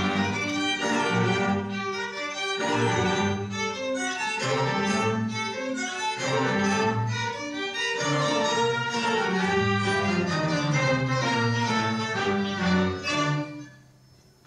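Youth orchestra playing, bowed strings to the fore, in sustained notes with low string lines beneath. Near the end the music breaks off into a brief pause.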